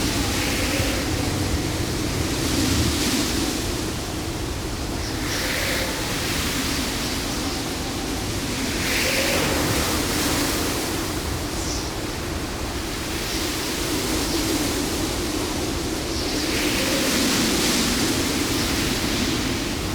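Stormy sea: a steady wash of surf and wind that swells every few seconds as waves break.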